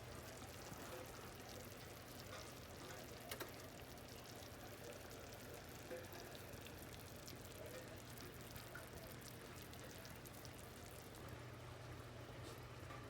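Food frying faintly in a pan: a steady low sizzle with a few small pops, over a steady low hum.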